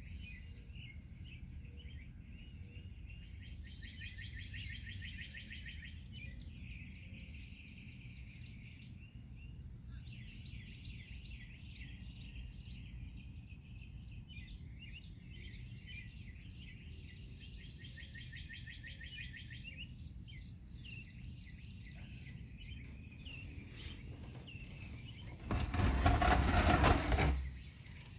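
Songbirds singing, with rapid trilling songs repeated several times, over a steady low rumble of background noise. Near the end a loud rush of noise lasting about two seconds covers everything.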